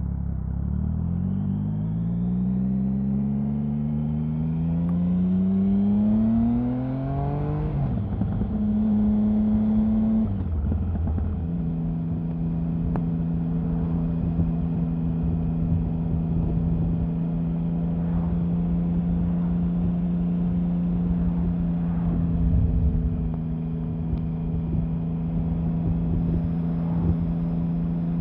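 Triumph Sprint 1050's three-cylinder engine pulling hard, rising in pitch for about seven seconds. The revs drop sharply at a gear change, hold briefly, and drop again. The engine then runs at a steady cruising speed over a low rumble of wind and road noise.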